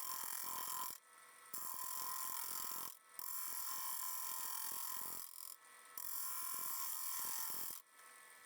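Four bursts of high hissing noise, each one to two seconds long, separated by short gaps.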